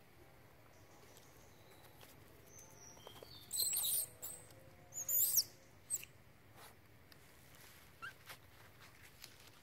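Two bursts of high-pitched, squeaky animal calls with sliding pitch, about three and a half and five seconds in, with a few fainter chirps and clicks around them.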